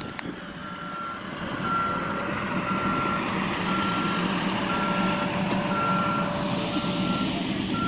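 Vehicle's reversing alarm beeping, a single tone about once a second, over a steady outdoor background.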